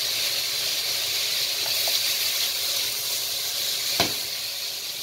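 Sliced onion, carrot, garlic and ginger frying in sunflower oil in a hot nonstick wok, a steady sizzle as the onions soften toward translucent. A single sharp knock about four seconds in as the wooden spoon stirs the pan.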